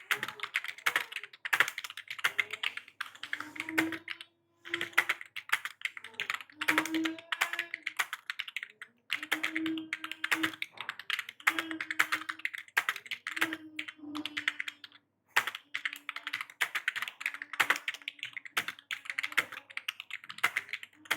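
Fast typing on a computer keyboard: quick runs of key clicks broken by short pauses, as in a timed typing-test practice.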